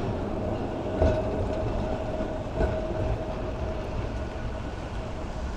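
Blackpool Balloon double-deck heritage tram running past on its rails: a steady low rumble with a steady humming tone, and two sharp knocks about a second and two and a half seconds in.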